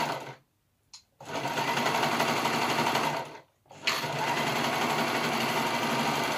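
Overlocker (serger) stitching a seam at full speed in three runs, stopping briefly about half a second in and again about three and a half seconds in, with a light click in each pause.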